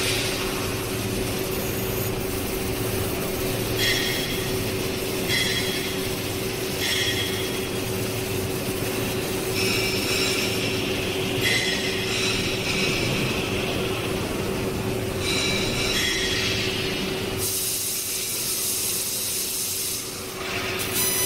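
Laser tube-processing machine with a belt polishing unit running: a steady motor hum under high-pitched squealing passes that recur every second or two. The hum drops out about three-quarters of the way through, and a loud hiss follows for a couple of seconds.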